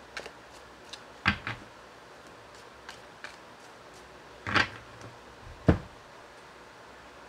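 Round cardboard fortune cards being shuffled by hand and knocked on a wooden tabletop: scattered sharp clicks and taps, the loudest about a second in, at about four and a half seconds and near six seconds.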